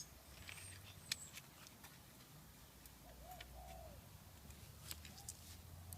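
A dove cooing faintly, one soft two-part coo about halfway through and a shorter one near the end, with a few faint light clicks.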